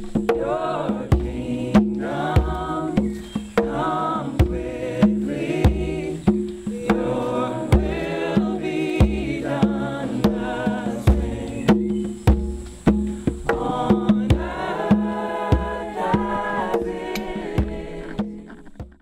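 Background music: a song with a singing voice over a steady beat of percussion and bass.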